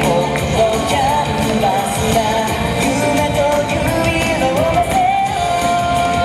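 Pop song with a sung lead vocal and a steady beat, played loud over outdoor loudspeakers as dance music.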